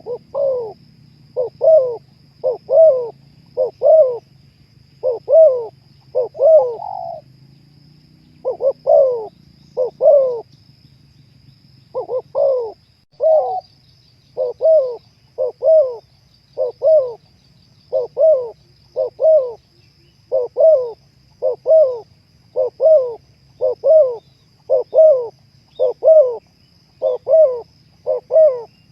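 Spotted dove cooing in a long repeated series of short notes, each a quick double note, about one a second, with a short pause partway through. A faint steady high-pitched tone and a low hum run underneath.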